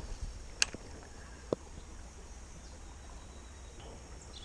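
Quiet outdoor ambience by a creek, with a faint steady high hiss. A sharp click comes about two-thirds of a second in and a smaller one about a second and a half in.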